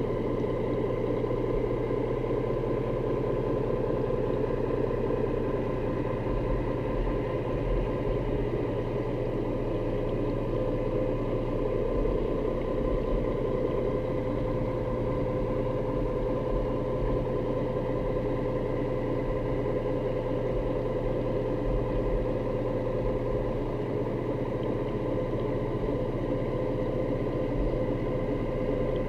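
Steady engine hum heard underwater through the camera housing, with several held tones over a low rumble and no change in speed.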